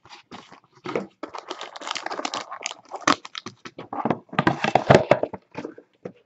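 A cardboard trading-card box being handled and opened by hand, with its wrapped packs taken out: irregular cardboard scraping and tapping mixed with crinkling packaging.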